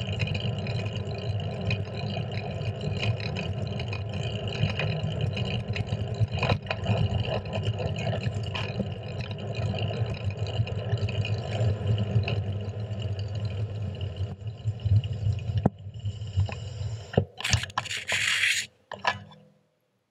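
Steady wind buffeting and road rumble on a handlebar-mounted action camera on a moving bicycle. Near the end a hand handles the camera, giving a few sharp knocks and a brief scraping rush, and then the sound cuts off suddenly.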